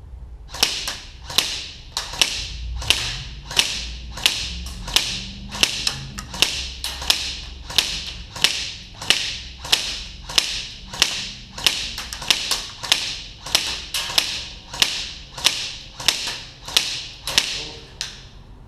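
ICS Galil MRS airsoft electric gun firing single shots on semi-auto at a steady pace, about three shots every two seconds, some two dozen in a row.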